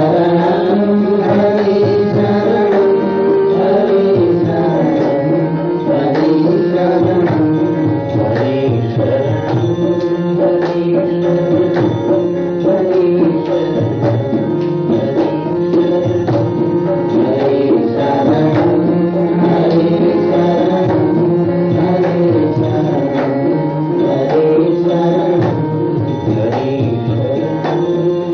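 Hindu devotional sankirtan music: a tabla keeps a steady rhythm under a continuous melody with chanted singing.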